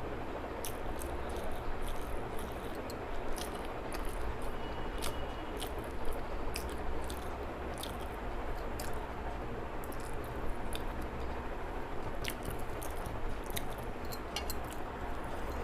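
Close-up chewing and eating: wet mouth sounds with many small, irregular clicks and squishes while someone eats a fish curry meal.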